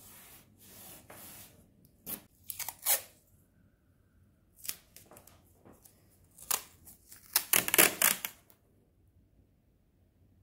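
Hands rubbing and pressing masking tape down along the edges of rough watercolour paper: a series of short, scratchy rubbing strokes, loudest about eight seconds in.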